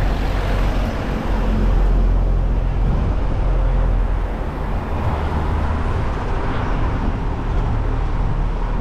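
Steady city road traffic noise heard while riding a bicycle along the street, with a constant low rumble underneath.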